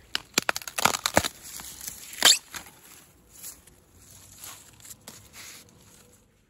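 A young bamboo shoot being snapped off by hand: a quick run of sharp cracks and crunches in the first second or so, the loudest crack a little after two seconds, then softer rustling.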